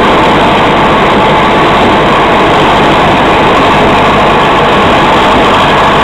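Massey Ferguson 178 tractor's four-cylinder diesel engine running steadily and loudly under load while harvesting corn, heard up close from the driver's seat beside the exhaust stack.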